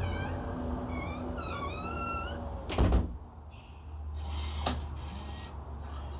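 Motorised smart door swinging shut, its opener humming steadily with a few short high squeaks as it moves. The door closes with a loud thud about three seconds in. A brief whirr follows, ending in a sharp click.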